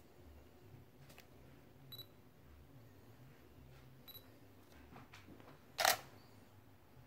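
Canon 80D DSLR: a few faint clicks, then two short high beeps about two seconds apart. Near the end comes a single loud, brief mechanical clack of the camera's mirror and shutter.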